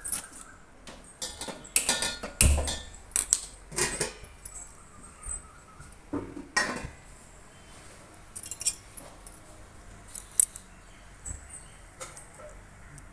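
Metal cookware clanking and knocking on a gas stove as a pot is moved and an empty kadai is set on the burner: several sharp clanks and one dull thud in the first seven seconds, then only occasional light clicks.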